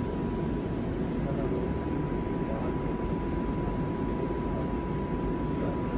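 Steady rumble inside a Flexity Outlook streetcar, with a thin steady high tone running through it.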